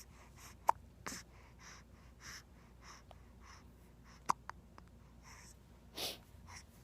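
A baby hiccupping: two short, sharp hics, one under a second in and one about four seconds in, with soft breathing between them and a louder breathy puff about six seconds in.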